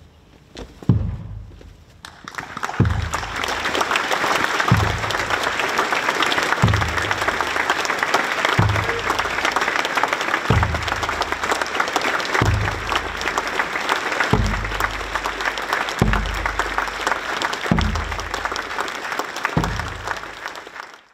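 A large crowd applauding steadily from about two seconds in, fading out at the very end, over a deep drum beat keeping slow-march time, one beat about every two seconds.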